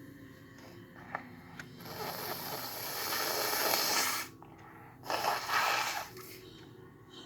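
A person blowing a snotty nose hard, twice. The first blow is long, about two and a half seconds, and grows louder before cutting off sharply. The second, shorter blow comes about a second later.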